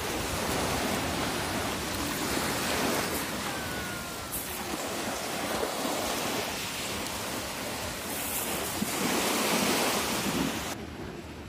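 Sea surf washing onto a sandy beach, mixed with wind buffeting the microphone, in a steady rushing noise that swells and eases. Near the end the sound drops abruptly, turning quieter and duller.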